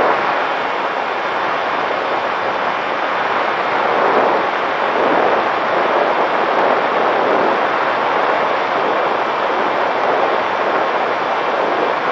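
Small fixed-wing UAV in flight, heard through its onboard camera's microphone: a loud, steady rush of airflow mixed with the motor and propeller running.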